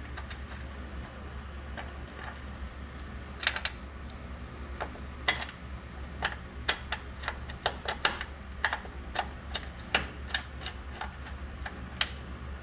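Hand ratchet clicking in short, uneven strokes, about two clicks a second from a few seconds in, as a bolt is run in. A low steady hum runs underneath.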